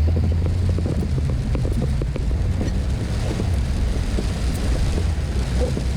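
Car driving on a wet road: a steady low drone of engine and tyres, with small irregular ticks throughout.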